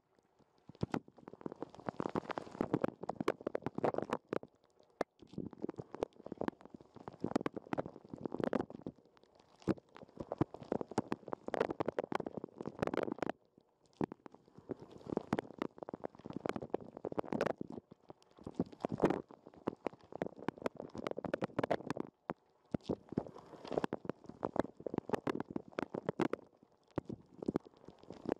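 Dishwasher wash water spraying and splashing over a waterproof sports camera, heard muffled through the camera's sealed case: irregular gurgling surges full of small droplet clicks, with a few brief lulls.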